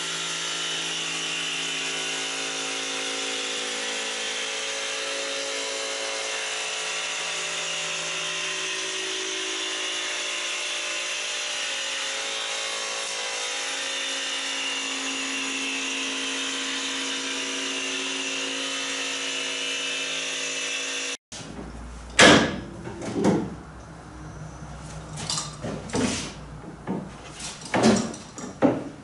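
Cordless jigsaw cutting a long cedar boat plank, running steadily for about twenty seconds. It cuts off abruptly and is followed by scattered sharp wooden knocks and clicks as the plank and clamps are handled.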